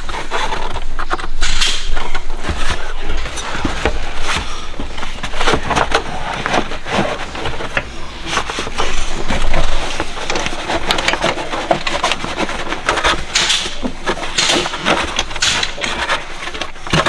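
Irregular clicks, knocks and scrapes of hands and tools working loose car interior trim and fittings.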